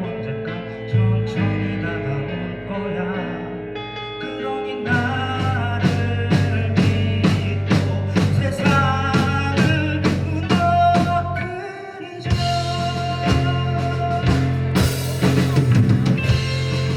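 Live rock band playing a song with a singer. Sparse at first, the drum kit comes in about five seconds in with a steady beat, drops out briefly near twelve seconds, then the full band carries on.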